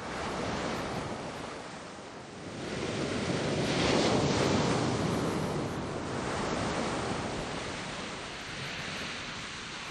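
Sea surf: a wash of waves swelling and falling back, loudest about four seconds in.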